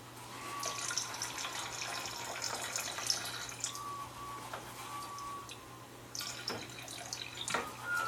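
Water for a sound effect, trickling and then dripping, with a few short, thin squeaks.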